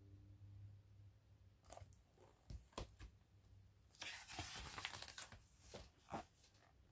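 Faint handling of a hardcover picture book: a few soft clicks, then a paper page turned with a brief rustle about four seconds in.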